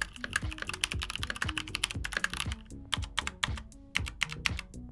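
Rapid typing on a Logitech G413 SE TKL mechanical keyboard with tactile brown switches and PBT keycaps: a fast, steady stream of clacking keystrokes, not very loud, about midway in noise for tactile switches.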